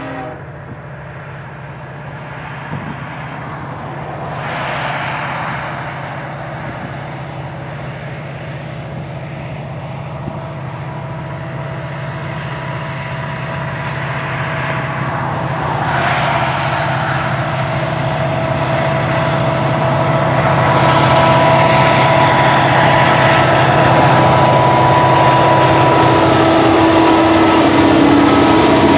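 Diesel freight locomotive consist (an SD70M-2 leading a C40-8 and eight SD40-2s) approaching and passing: the tail of a horn blast cuts off at the start, then the engine drone and rail rumble grow steadily louder. The pitch of the drone drops as the lead unit passes near the end.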